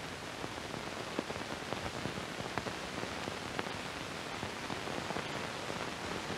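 Steady hiss with faint, scattered crackles: the noise floor of an old 1960s film soundtrack, with no speech or music.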